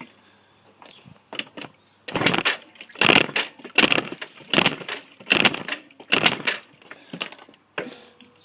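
Yamaha Aerox 50cc two-stroke scooter being kick-started: a run of about six hard kicks, a little under one a second, each a short clattering turn-over of the engine, with weaker kicks before and after. The engine turns but does not fire and won't start.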